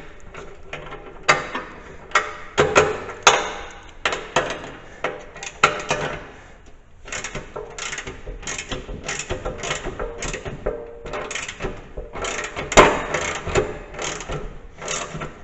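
Socket ratchet wrench clicking in uneven runs as a nut on the snow plow mount is turned, with a short pause about halfway through.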